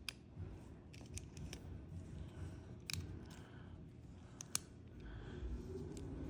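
Small parts of a stylus pen being handled as its tip is put back on: faint rubbing with a few sharp, separate clicks, the loudest about three and four and a half seconds in.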